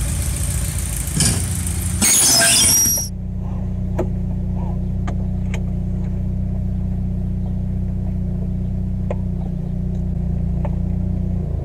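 Car engine running, with a loud, sharp crash lasting about a second some two seconds in. After the crash the engine idles steadily, heard from inside the car's cabin, with a few faint clicks.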